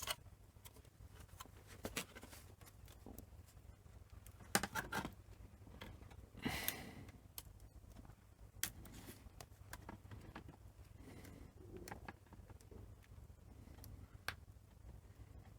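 Scattered small clicks and brief rustles of plastic laptop parts being handled and fitted during reassembly, the loudest about four and a half and six and a half seconds in, over a faint steady low hum.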